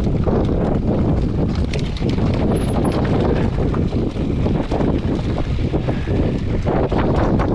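Wind buffeting the microphone over a constant clatter of small knocks and rattles, as from riding over rough, rocky ground.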